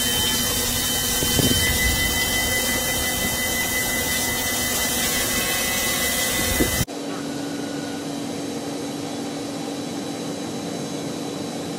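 A CNC milling machine cutting a metal part under flood coolant: a steady, loud hiss of spray and cutting with a high, steady whine. About seven seconds in it cuts off abruptly to a second CNC mill cutting. This one is quieter, with a steady low hum under a fainter hiss.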